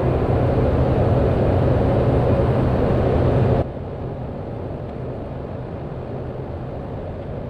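Steady drone of a Cessna 208B Grand Caravan's single turboprop engine, heard in the cockpit over the headset audio. A loud hiss from an open radio channel lies over it and cuts off sharply about three and a half seconds in, leaving only the lower engine drone.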